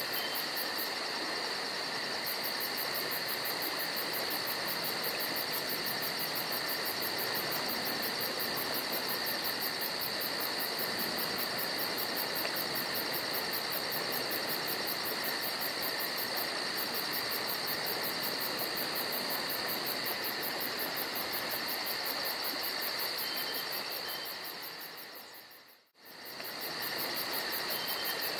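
Crickets trilling steadily over the even rush of a creek. The sound fades out briefly near the end and comes back.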